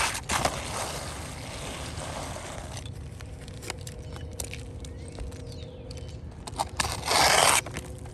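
Asphalt shingles scraping and rustling as they are handled, with scattered clicks and one short, louder scrape about seven seconds in.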